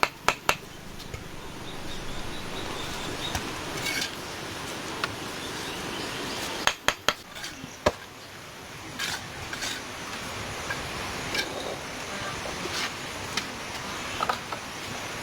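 Quick runs of sharp knocks, several a second, at the very start and again about seven seconds in, over a steady background hiss.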